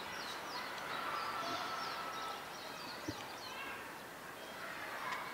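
Small birds chirping in quick, short calls over a steady background hum of outdoor noise, with one longer held note about a second in.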